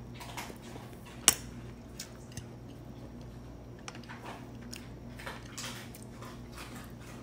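A person eating: one sharp clink of a utensil against a dish about a second in, then scattered lighter clicks and soft chewing noises, over a steady low hum.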